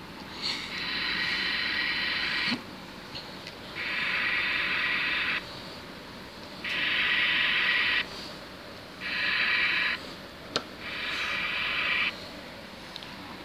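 Toy iron's electronic steam-hiss sound effect, a high hiss played five times for one to two seconds each, with short pauses between, as its button is pressed. A single sharp click comes between the fourth and fifth hiss.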